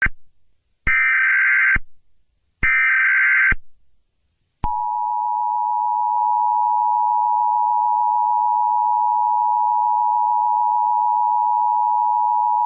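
Emergency Alert System signal: two buzzy data bursts of about a second each, then, about four and a half seconds in, the steady two-tone attention signal, held for about eight seconds.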